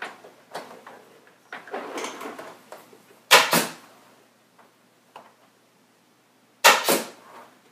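Pneumatic staple gun firing twice, about three seconds apart, each shot a sharp double crack as it drives staples through the table grid into the padding. Softer rustling and clicks of the gun being positioned come before the first shot.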